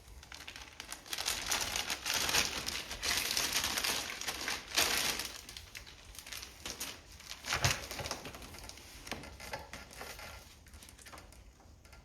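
Packaging crinkling and rustling as a package is opened by hand, loudest in the first few seconds and then tailing off, with a single knock about three-quarters of the way through.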